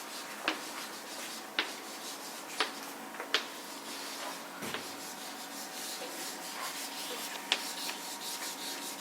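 Faint rustling and handling noise in a small room, broken by about six short, sharp clicks or taps at irregular intervals.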